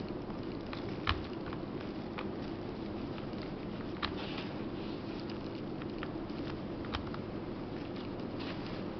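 Small sharp clicks and taps of tools and plastic parts being handled while a Micromax P310 is disassembled, the clearest about a second in, then near four and seven seconds, over a steady low background hum.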